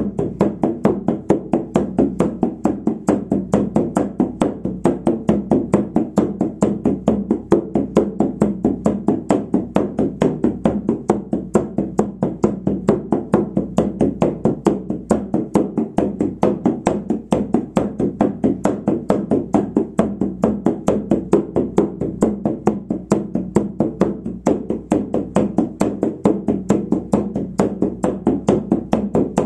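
Hand-held frame drum struck with a beater in a fast, steady, unbroken beat, each stroke blending into a ringing drone: the monotonous drumming of a shamanic journey.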